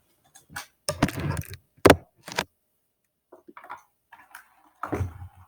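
Scattered light clicks and knocks, a few at a time, with short gaps between them.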